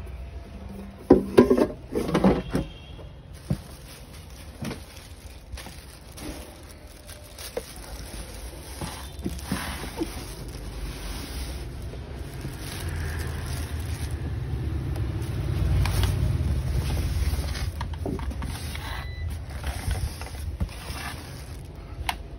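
Handling noise as a plastic air fryer is turned and touched: a cluster of knocks and rattles in the first few seconds, scattered clicks, then a low rumble that swells and fades.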